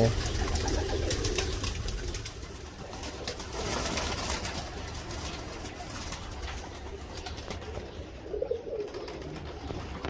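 A flock of domestic pigeons cooing softly, with faint scattered ticks.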